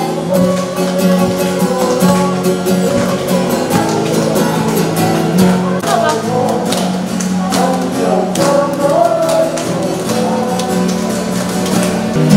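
Acoustic guitar strummed while a group sings a song together, with hands clapping along.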